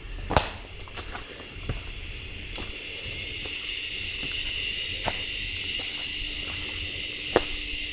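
Footsteps crunching and knocking on a rocky forest trail, irregular, with two sharper knocks about half a second in and near the end. A steady high-pitched drone runs underneath, and short, very high chirps come every second or so.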